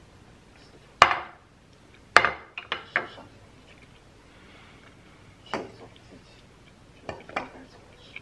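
Ceramic plate, metal fork and spoon and a small glass bowl knocking and clinking on a marble tabletop as the dishes are gathered and stacked. There are several separate sharp clinks, the loudest about a second in, a quick cluster around two to three seconds, and a few more later.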